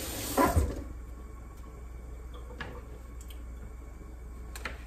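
Kitchen tap water running over a tomato in the sink, stopping within the first second. Then a few faint knife taps on a cutting board as the tomato is sliced, the clearest near the end.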